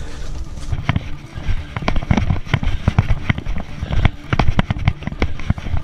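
Someone hurrying on foot through woods and brush: an irregular run of sharp cracks and thumps, about three or four a second, as twigs and branches snap underfoot and against the legs.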